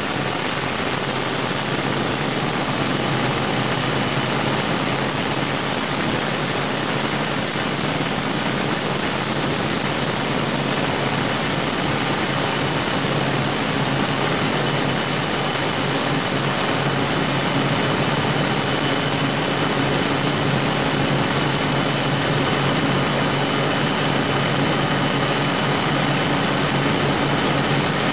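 The twin Scania 12-litre six-cylinder diesels of a high-speed prototype powerboat running steadily under way, in a dense rushing noise with a steady low drone and a thin high whine over it.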